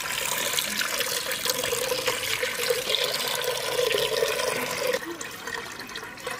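Water poured from a metal bowl into an earthenware clay pot, splashing into the water already inside, with a hollow ring from the pot as it fills. The pour eases off about five seconds in.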